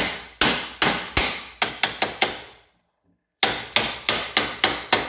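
Rubber mallet tapping a new bearing insert into a steel flange bearing housing to seat it: a quick run of about seven blows, a short pause, then another run of about six, roughly three a second.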